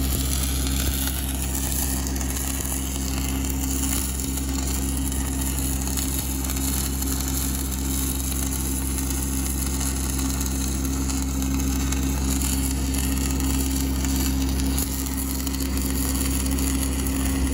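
Stick-welding arc from a 1/8-inch E6010 rod, a steady harsh crackle as the welder runs a bead around a pipe on a plate, with a steady low hum underneath.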